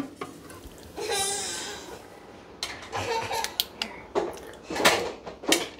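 Irregular metal clinks and knocks as the wood stove's blower motor and its mounting bracket are worked loose by hand. A child's voice is heard briefly about a second in.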